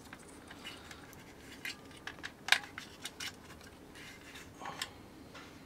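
Light, scattered clicks and scrapes of plastic and metal as the small relay circuit board and its wiring are pulled out of an opened plastic power strip housing, with one sharper click about halfway through.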